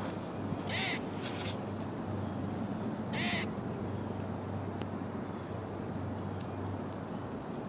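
Short harsh animal calls, one about a second in, a fainter one just after, and another about three seconds in, over a steady low hum.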